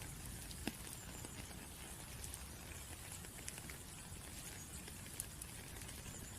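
Steady rain: an even hiss of falling drops, with scattered single drops ticking sharply, one louder tick less than a second in.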